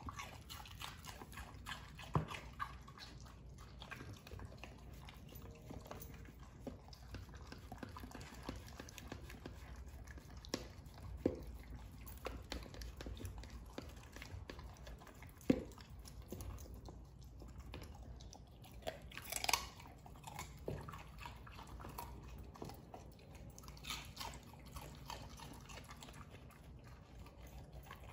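A Welsh Corgi chewing and crunching chunks of vegetables picked from a plastic slow-feeder bowl, with scattered louder crunches and clicks.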